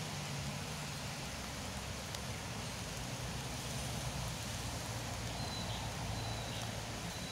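Steady rain falling on river water and leaves, an even hiss, with a faint low hum underneath.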